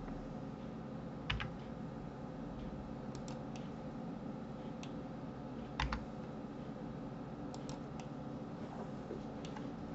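Scattered single clicks of a computer keyboard and mouse used to work in 3D software, about ten in all and irregularly spaced, with two louder ones about a second in and near six seconds in, over a steady low background hum.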